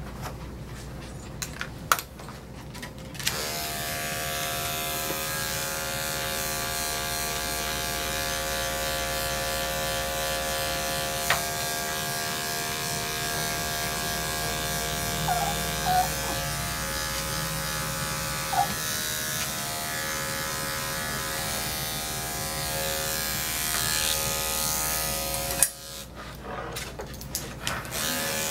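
Corded electric dog-grooming clippers with a #10 blade running with a steady motor hum as they shear a dog's matted coat. They switch on about three seconds in, stop a few seconds before the end, then start again.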